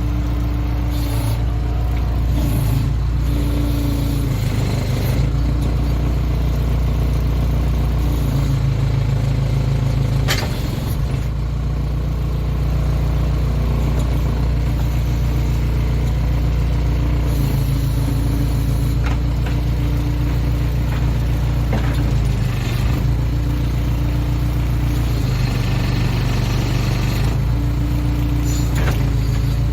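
Case 580K backhoe's diesel engine running steadily while digging, its note shifting every few seconds as the hydraulics are worked, with one sharp knock about ten seconds in.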